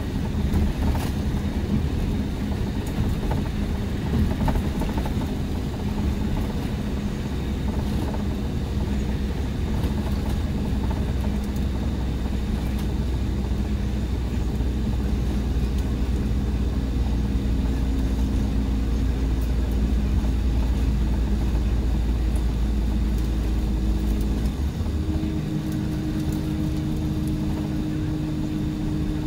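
Diesel engine of a Mercedes-Benz O-500RSD coach running with a steady low drone. About 25 seconds in, the deepest part of the note drops away and a higher note takes over.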